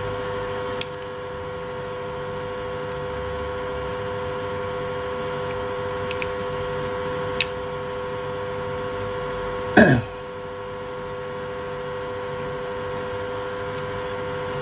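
A steady hum with a few fixed tones, with faint sharp clicks about a second in and again about seven seconds in. About ten seconds in comes one brief louder sound that falls in pitch.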